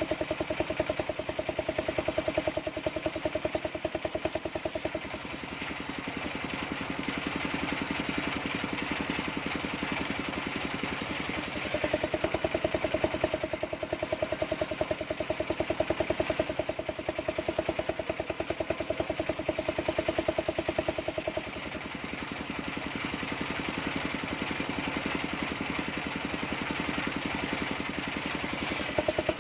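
Engine of a mobile circular-saw sawmill running steadily with a fast, even pulse. It gets louder for stretches of several seconds and then drops back.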